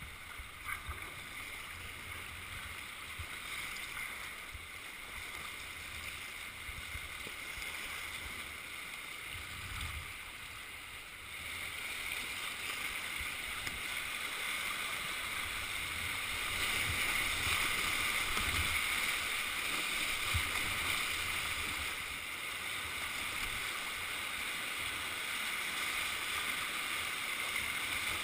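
River whitewater rushing over a rocky rapid, picked up by a helmet-mounted GoPro on a kayaker running it; the rush grows louder a little before halfway through as the boat enters rougher water. Scattered soft low thumps sound under the rush.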